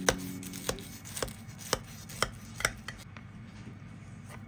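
Knife cutting through the baked puff-pastry top crust of a chicken pot pie: a run of crispy, crunchy crackles about twice a second, fading after about three seconds.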